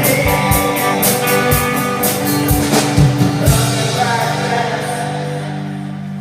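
Live rock band with electric guitar and drum kit playing; the drum hits stop about three and a half seconds in and a held chord rings on, slowly fading.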